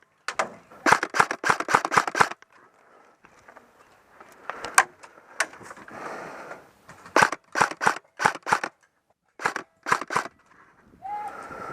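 Airsoft guns firing: quick runs of sharp shots with short pauses between, the busiest run in the first couple of seconds and scattered shots and short strings after.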